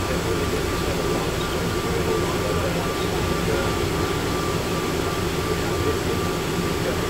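Steady low rumble and hum of the ATL Plane Train automated people-mover car, heard from inside, with a thin steady tone over it.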